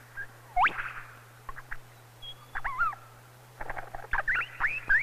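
Lyrebird singing its varied mimicry song: a run of quick sweeping whistles, slurred falling notes and sharp clicks, with several sweeping calls close together near the end.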